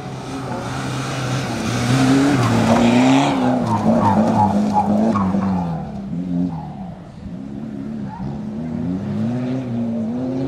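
Rally car engine revving hard through a loose gravel corner, with a loud spray of gravel and dirt under the sliding tyres about two seconds in. As the car pulls away, the engine note rises and drops through several gear changes.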